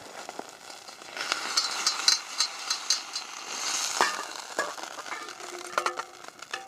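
Browned beef cubes sizzling in hot oil in a metal camp cook pot, with a utensil scraping and knocking against the pot several times as the meat is stirred and moved.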